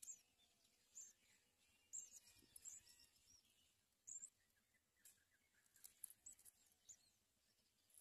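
Faint, short, high-pitched chirps of small birds, coming every second or so at irregular intervals.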